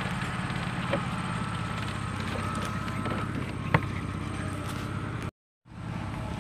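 Steady low drone of an engine running, with a few light clicks, one sharper knock just under four seconds in, and a brief cut to silence a little after five seconds.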